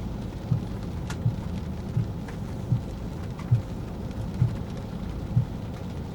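Rain and the low rumble of a car driving, heard inside the car, with a soft low thump repeating a little under once a second.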